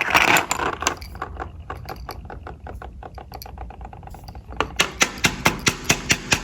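A rapid series of small sharp clicks, rattle-like, that fade over the first few seconds and then come back louder and evenly spaced, about five a second, from about four and a half seconds in.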